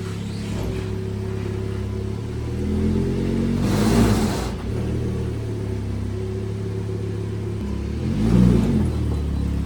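Lamborghini Huracan Evo's V10 engine idling, with two short throttle blips that rise and fall, about four seconds in and again near the end, as the car is crept slowly forward.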